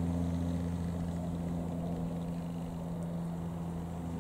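De Havilland Canada DHC-6-310 Twin Otter twin-turboprop aircraft passing overhead: a steady, low propeller drone made of a few even tones.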